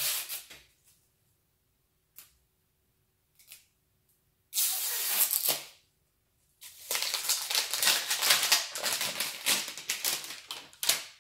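Toy packaging being ripped open along its zip tear strip: a short tearing rasp about four and a half seconds in, then a longer, stuttering rip of about four seconds, after a couple of faint clicks.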